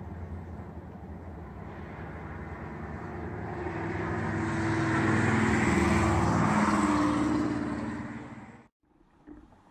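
A motor vehicle passing by: its engine sound builds over a few seconds, peaks near the middle, fades, then cuts off suddenly near the end.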